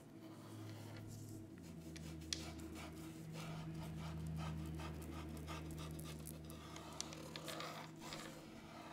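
Faint scratching and light tapping of a paintbrush on a painted wooden cutout, over a low steady hum that starts about half a second in and fades near the end.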